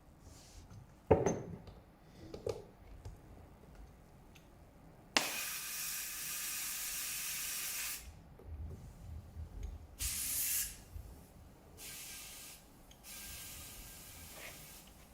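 Compressed air hissing in bursts from an air chuck on a tyre valve as the tyre is inflated: one burst of about three seconds, then several shorter ones. A couple of knocks come near the start.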